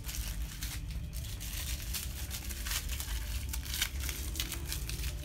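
Plastic packaging crinkling and rustling in irregular bursts as it is handled during unpacking.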